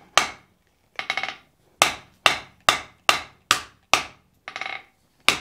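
Rounding hammer striking a red-hot wrought iron hammer head on the anvil, about two blows a second, each with a short metallic ring, as the edges of the eye are worked down to close a delamination crack. A softer rattle about a second in and again near the end breaks up the rhythm.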